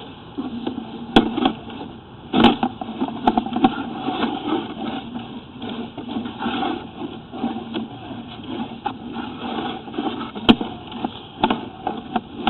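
Sewer inspection camera's push cable being fed down the pipe: irregular rustling and scraping with a few sharp clicks.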